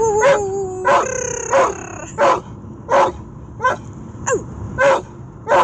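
Ten-year-old German pointer yelping and whining excitedly, about nine short sharp yelps at a steady pace with long drawn-out whines between them, one sliding slowly down in pitch. He is worked up because he knows a run is coming.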